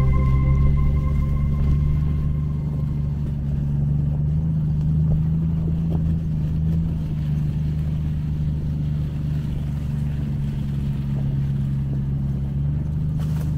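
Jeep engine running under way, a steady low drone whose note rises a little a few seconds in and settles again.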